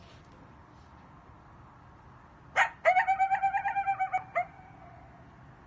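Coyotes yipping and howling: a sharp yip about two and a half seconds in, then a wavering call broken into quick pulses for over a second, another short yip, and a faint held note that fades.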